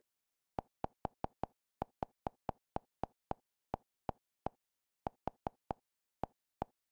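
Short, identical interface clicks from the TiviMate IPTV guide, one for each step of the channel selection. About twenty of them come in quick runs of roughly four a second with brief pauses between, against otherwise dead silence.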